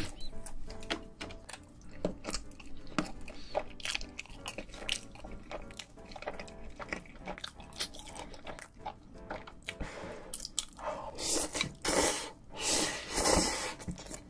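Close-miked chewing and wet mouth sounds of someone eating spicy stir-fried fire noodles with chopsticks, turning into louder, longer slurps of the noodles over the last few seconds. Light background music runs underneath.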